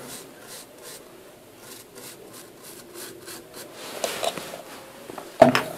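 Small bristle brush scrubbing thinner over a motherboard's CPU socket: quick, light brushing strokes, several a second.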